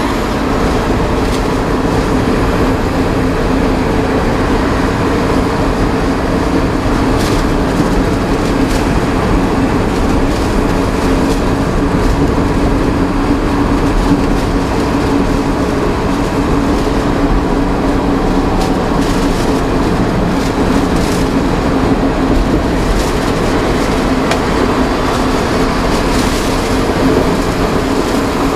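Steady engine drone and road noise from inside a truck cab cruising at highway speed, the engine holding an even pitch without revving or shifting.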